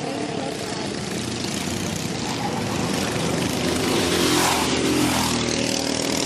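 Go-kart engines running on the track, their pitch rising and then falling around the middle as karts accelerate and pass.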